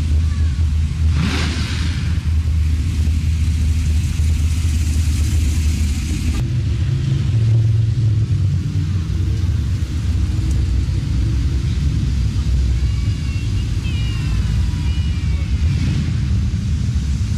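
Classic car and hot rod engines rumbling low as the cars cruise slowly past one after another, with one car sweeping close by about a second in.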